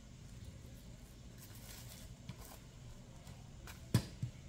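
Hands handling a plastic fashion doll and its dress: faint soft rustling, then a sharp tap about four seconds in and a lighter one just after.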